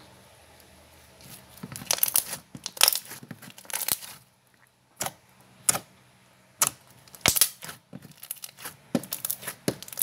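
Thick slime being stretched and squeezed by hand, giving sharp clicking and popping sounds in irregular clusters, with a short pause about four seconds in.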